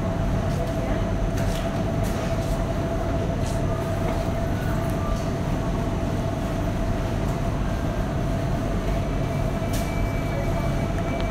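Supermarket background noise: a steady low rumble with a constant mid-pitched hum, faint voices, and a few short clicks and clatters.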